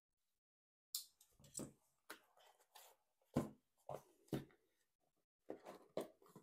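Corrugated cardboard mailer box sealed with clear packing tape being opened by hand: about ten short, separate scrapes and crackles of tape and cardboard, with quiet between them.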